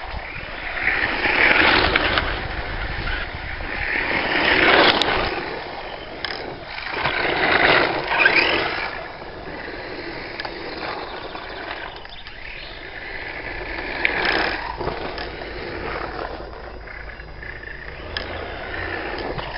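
LRP S10 Blast BX electric RC buggy driving on gravel, its motor and tyres swelling and fading as it makes several passes, the loudest in the first half.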